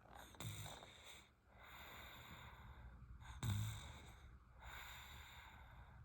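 Sleeping baby snoring softly: two short, low snores about three seconds apart, the second louder, with quiet breathing between.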